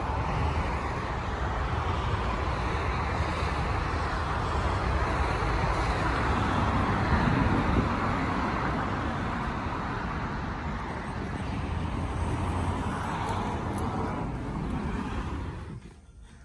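Steady road traffic noise outdoors, a continuous rush of passing cars that falls away abruptly shortly before the end.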